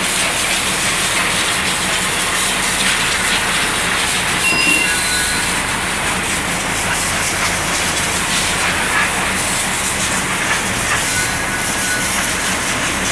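High-pressure washer jet spraying water onto a truck driveshaft and its universal joint on a concrete floor: a loud, steady hiss that starts abruptly, with a steady low hum underneath.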